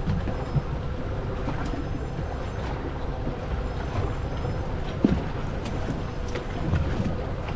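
Steady low rumble of a small fishing boat at sea, with a faint steady hum running under it and a single sharp knock about five seconds in.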